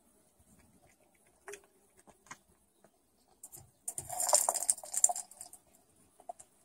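A cat paws at a pink plastic toy ball and bats it against a wicker basket. The ball rattles and scrapes for about a second, roughly four seconds in, after a few faint taps.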